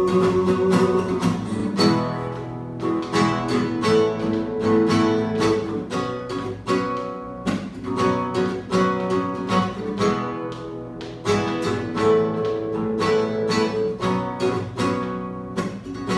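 Instrumental break in a worship song: acoustic guitar strummed in a steady rhythm over sustained chords, with no singing.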